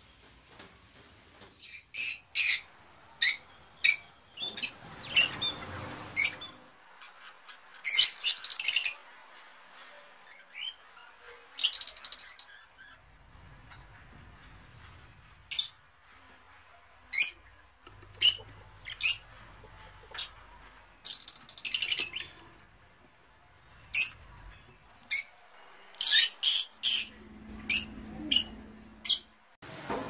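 Small parrots calling: sharp, high chirps and short squawks, singly and in quick runs, with a few longer calls of about a second.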